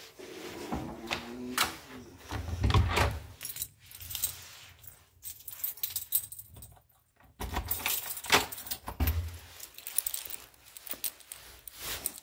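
Keys jangling and clinking in a series of sharp clicks and knocks, with two dull thumps, about three seconds in and about nine seconds in.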